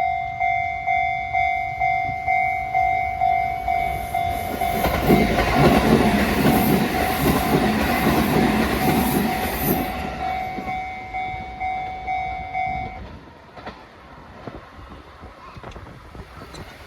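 Japanese railway level-crossing warning signal ringing a repeated tone at about two strikes a second, while a Shin-Keisei Line electric train passes over the crossing, its wheel noise loudest from about five to ten seconds in. The crossing signal stops about thirteen seconds in, leaving faint background noise.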